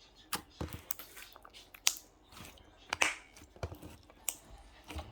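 Irregular small clicks, taps and crackles at close range, a few sharper ones among them, about a dozen over five seconds.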